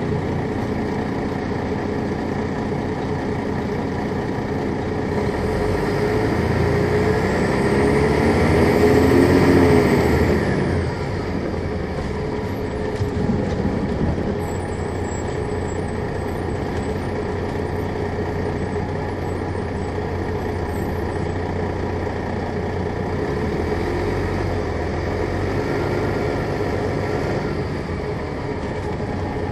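MCI D4000 coach's Detroit Diesel Series 60 engine running. It builds in pitch and loudness for several seconds with a high whine rising and falling alongside, eases off sharply about ten seconds in, then runs steadily.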